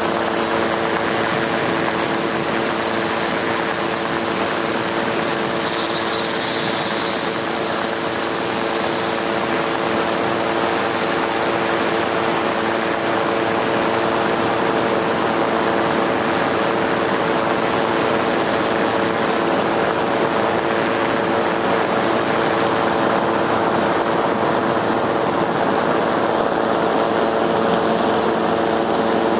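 Helicopter noise, heard from on board: a steady engine and rotor drone carrying several constant hum tones, with a faint high whine that climbs in pitch over the first dozen seconds.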